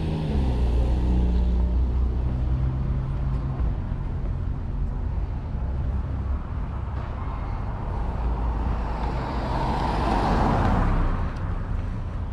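Road traffic close by: a vehicle engine running with a low steady hum for the first few seconds, then the engine and tyre noise of a passing car swelling to a peak about ten seconds in and fading.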